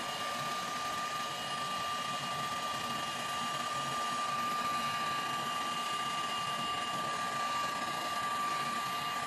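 Electric heat gun running steadily: a constant rush of blown air with a high, steady whine from its fan motor, as it shrinks heat-shrink tubing.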